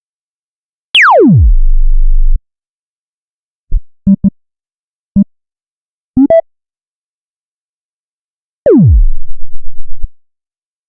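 Synthesized electronic ringtone-style sounds made in FL Studio. A fast falling pitch sweep drops into a low bass drone. A few short synth notes follow. Near the end a second falling sweep breaks into a stuttering low pulse.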